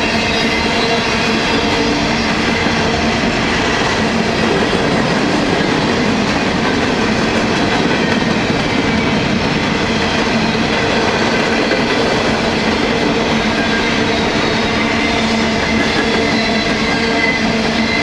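Empty steel coal hopper cars of a freight train rolling past, their wheels on the rail making a loud, steady rolling noise with faint steady tones above it and no break.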